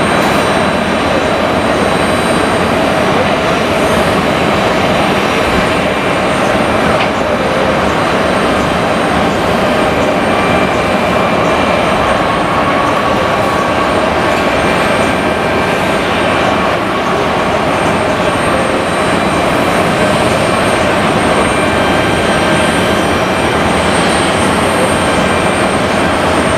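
Jet airliner engines running: a steady, loud rush with thin high whining tones over it.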